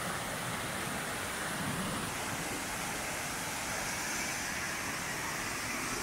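Waterfall pouring over rocks into a pool: a steady, even rush of water.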